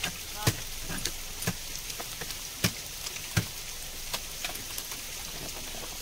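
Bits of ice and water pattering down on a frozen waterfall: scattered sharp ticks and knocks, four of them louder in the first half, over a steady high hiss.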